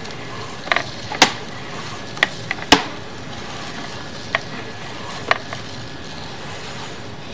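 Sewer inspection camera's push cable and reel being pulled back: a scattering of sharp, irregularly spaced clicks and knocks over a steady background hiss.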